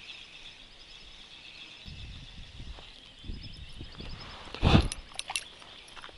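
A spinning rod being cast: a sharp whoosh about three-quarters of the way through, followed by a few quick ticks as the line pays out, over a steady faint high trill in the background.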